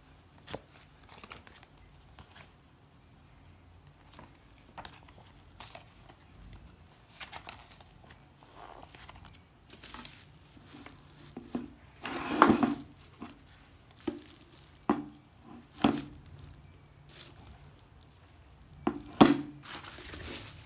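Bubble wrap and plastic packaging crinkling and rustling as a new electric multi cooker is unpacked, with scattered knocks and clunks as its cord, pot and lid are handled. The loudest clunks come about twelve seconds in, twice around sixteen seconds, and near the end.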